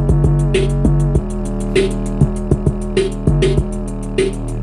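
Electronic music with a drum-machine beat playing through a 25-watt Bluetooth speaker with a 5.5-inch subwoofer and passive radiator. A steady deep bass line runs under fast, even hi-hat ticks, with a sharp snare-like hit about every second.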